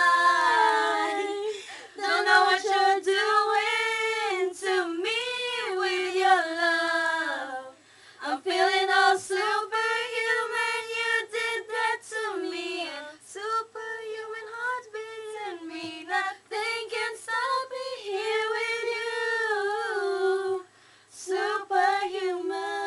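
A group of girls singing a pop song together in unison without accompaniment, pausing briefly about 8 seconds in and again near the end.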